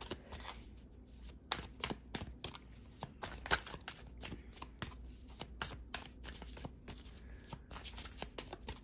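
A deck of tarot cards being shuffled by hand: a run of quick, irregular card snaps and flicks.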